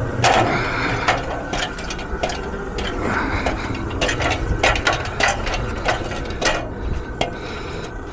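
Irregular sharp clicks and knocks, several a second, over a low steady hum.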